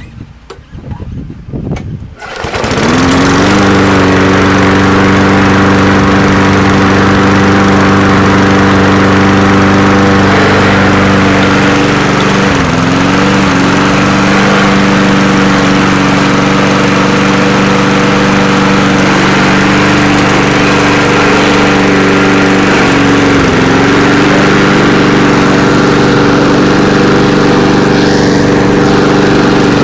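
Gasoline walk-behind lawn mower engine catching about two seconds in, then running steadily at full speed while mowing grass, its pitch dipping briefly twice.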